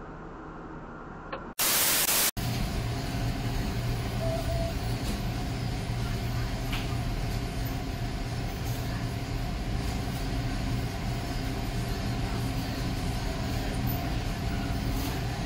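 A short loud burst of static about a second and a half in, then a steady hiss with a low hum underneath.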